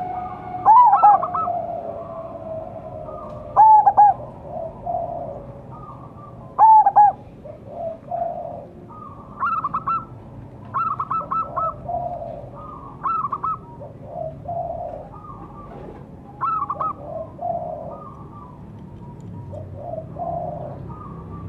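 Zebra dove (perkutut) cooing: short phrases of quick, staccato coos every couple of seconds, louder phrases alternating with softer notes.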